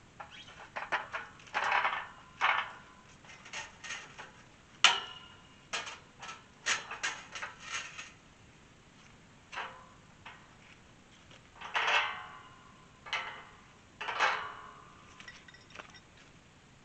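Steel tube farm gate clanking and rattling as it is handled and swung open, with a run of sharp metal knocks, the loudest about five seconds in.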